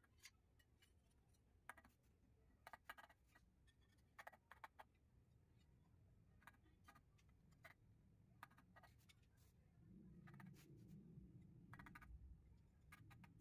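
Faint, irregular light taps, single and in small clusters: a small hammer tapping ceramic floor tiles down into their mortar bed to seat and level them. A faint low rumble grows a little louder in the later part.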